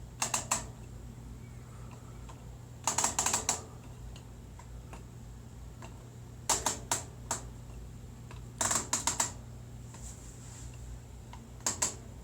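Short runs of quick, sharp clicks, three to five at a time, repeated about five times, over a steady low hum.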